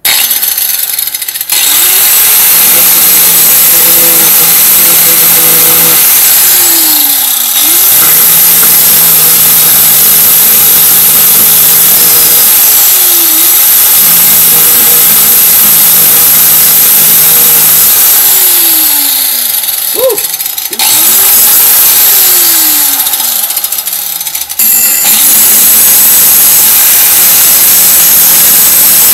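4½-inch electric angle grinder running at full speed and grinding an old steel brake pad. Its motor pitch falls and climbs back up about four times as the disc is pressed into the work and eased off.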